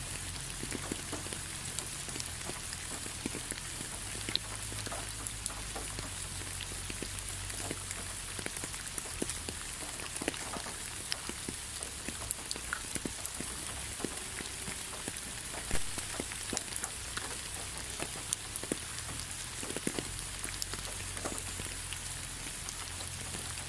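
Steady rain falling: an even hiss with many separate drops landing as sharp clicks, one drop louder than the rest about two-thirds of the way through.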